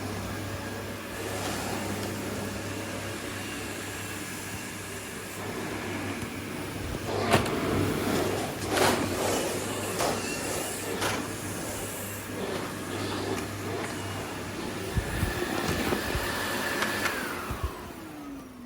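Dyson CY23 Cinetic Big Ball 2 canister vacuum cleaner running steadily with a high whine, with several knocks and clatters in the middle. Near the end it is switched off and the motor's whine falls in pitch as it spins down.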